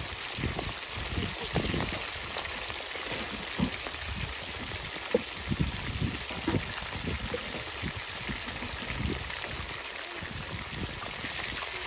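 Whole mojarra fish deep-frying in hot oil in a steel disco pan: a steady sizzle with frequent small pops and crackles, a few of them louder.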